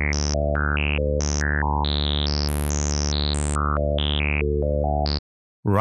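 Harmor synthesizer holding one sustained low note while a stepped, sample-and-hold automation of its filter cutoff jumps the resonant peak to a new level about four times a second, so the brightness leaps up and down. The note cuts off abruptly near the end.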